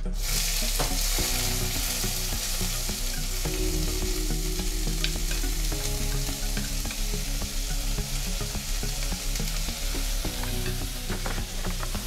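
Chopped onion and green chilies sizzling in hot oil with mustard and cumin seeds in a kadai, the hiss starting suddenly as they go into the oil and then running on evenly as they fry.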